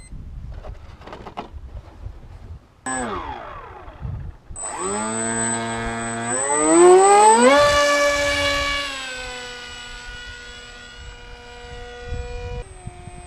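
Electric motor and propeller of a homemade foam RC plane, a whining hum that drops briefly, then throttles up in a steeply rising whine about four and a half seconds in, loudest with a rush of air a few seconds later. It then holds a steady high whine that eases slightly.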